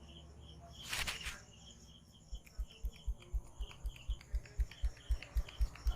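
A barber's hands tapping and patting rhythmically on a customer's head during a massage, about four dull thumps a second, starting a little after two seconds in and growing louder. A short rustle comes about a second in.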